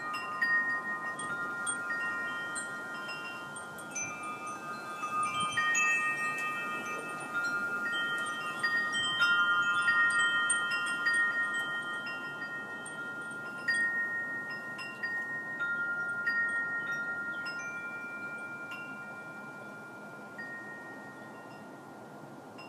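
Wind chimes ringing: several clear tones struck at random, overlapping as they ring on. The strikes thin out and the ringing fades over the last few seconds.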